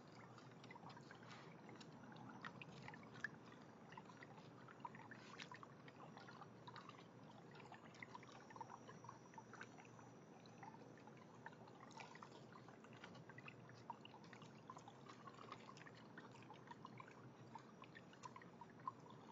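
Faint trickling water with many small scattered splashes and clicks as raccoons paw at the water and clamber over a half-barrel backyard fountain.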